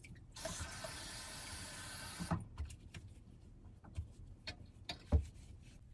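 Bathroom sink tap running for about two seconds, then shut off, followed by a few light knocks of items being set down on the counter.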